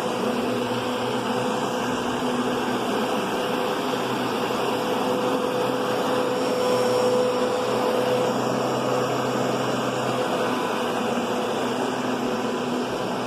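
Kenmore Progressive vacuum cleaner running steadily, its motor giving a way softer tone than a louder whining machine. The level rises slightly about seven seconds in.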